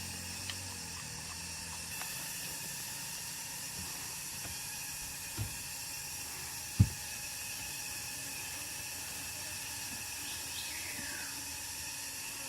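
Steady high-pitched hiss, with one dull thump about seven seconds in and a fainter one shortly before it.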